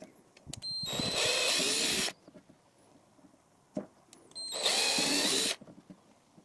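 Cordless drill with a small bit drilling pilot holes into a plastic battery case: two short runs, about a second and a half then about a second, each with a steady motor whine.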